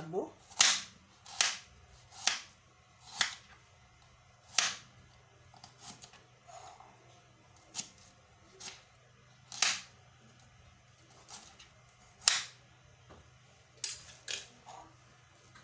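Kitchen knife slicing a red onion, the blade knocking sharply on the hard surface beneath with each cut: about a dozen cuts, unevenly spaced at roughly one a second.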